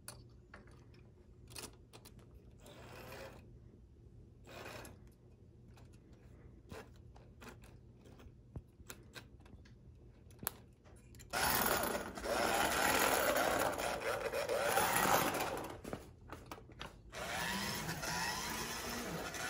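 Light clicks and handling of a model steam locomotive on the track, then about eleven seconds in its small electric motor and gearing start running with a loud buzzing whine. The running drops out briefly near the end and picks up again, the sign of a loose connection or wire cutting the power.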